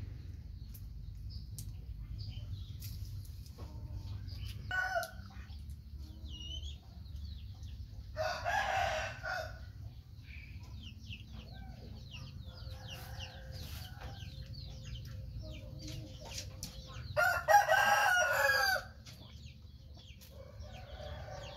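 A rooster crowing twice, each crow about a second and a half long, with a shorter call before the first, and faint high chirping in between.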